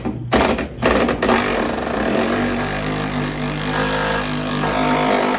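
Milwaukee cordless impact wrench on a tight body-mount bolt. It gives a few short blips, then is held on and hammers steadily for about four seconds, struggling to break the bolt loose.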